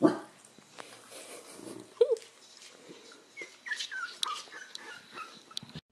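Newborn corgi puppies whimpering, with a run of short, falling high squeaks in the second half. There is a sharp knock at the start and a short, louder yip about two seconds in.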